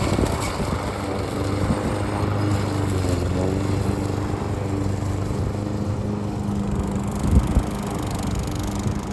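An engine running steadily, its pitch dipping slightly about three seconds in.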